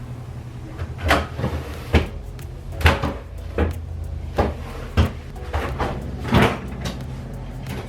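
Kitchen cupboard doors and drawers being opened and shut while ingredients are taken out: a dozen or so knocks and clunks at irregular intervals, over a steady low hum.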